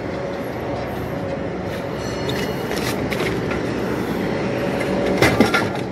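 Steady mechanical noise with a few faint steady tones, and a brief clatter with a squeak about five seconds in.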